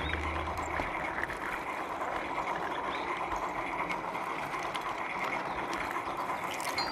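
Garden-railway train rolling along the track, heard from a wagon riding in the train: a steady running noise from the wheels on the rails, with scattered faint clicks.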